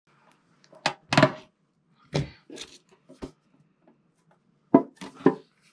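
Handling noise: about seven sharp knocks and clatters in uneven bunches, over a faint steady hum.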